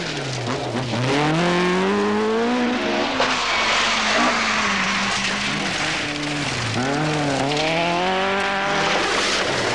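Ford Escort Mk2 rally cars driven flat out on a gravel forest stage. The engine note climbs and drops sharply at each gear change, several times over, over a hiss of tyres spraying gravel.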